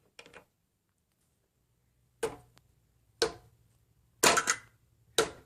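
Knocking on a hard surface: sharp knocks about a second apart, the third a quick double, after a couple of faint clicks near the start.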